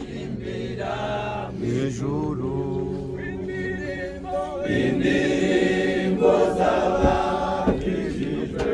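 A group of mourners' voices chanting together in long, held notes, growing louder about five seconds in.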